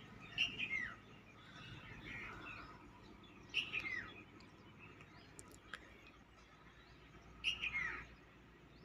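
Birds chirping: a loud, short falling chirp about every three and a half seconds, three times, with fainter chirps between.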